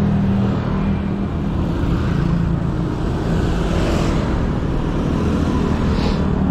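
Steady road-traffic noise with a low rumble, heard while riding a bicycle along the roadside, with motor vehicles passing close by.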